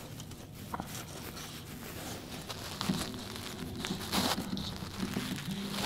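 Jacket fabric rustling and crinkling as it rubs over the camera's microphone, with scattered handling clicks. A low steady hum comes in near the end.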